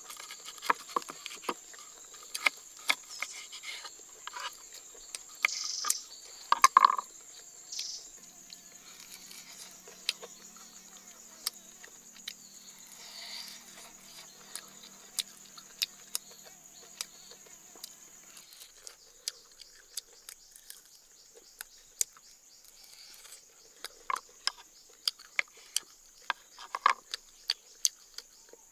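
A knife cutting and scraping through grilled ribs on a wooden board, giving sharp clicks and knocks, over a steady high drone of insects. The loudest knocks come about six to seven seconds in, and another run of clicks comes near the end as the ribs are handled.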